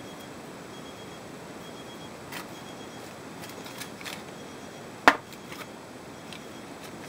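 Aluminium foil and crisp breaded chicken tenders handled by hand: a few light crackles, then one sharp click about five seconds in, followed by a couple of small ticks, over a steady low hiss.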